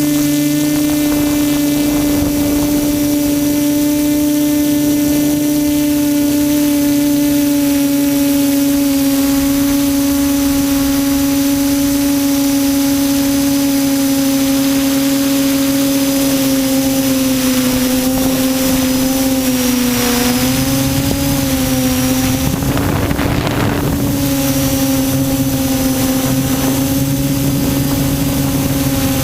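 QAV400 quadcopter's motors and propellers humming steadily in flight, the pitch wavering and dipping slightly a little past the middle, with a brief rush of wind noise soon after.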